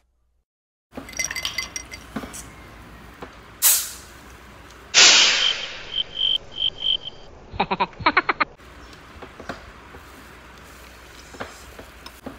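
Clinks, clicks and knocks of a seafood meal being handled and eaten, with a sharp loud knock about four seconds in. About five seconds in comes a loud sudden added sound effect, then five short beeps and a quick rattling run, before the soft clicks resume.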